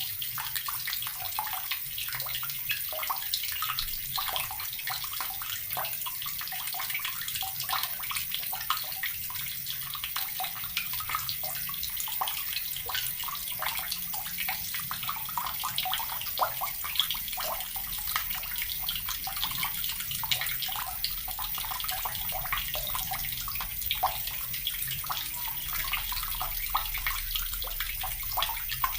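Water running steadily from a tap and splashing into water below, with a constant patter of small splashes.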